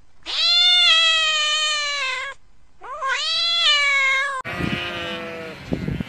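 A cat meowing twice, two long meows that rise briefly and then slowly fall in pitch. A little over four seconds in, a flock of sheep starts bleating.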